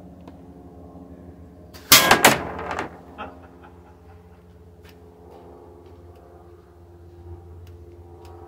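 A slingshot shot striking the metal target plate with its bottle cap about two seconds in: a loud bang that rings on for most of a second. A smaller knock follows about a second later.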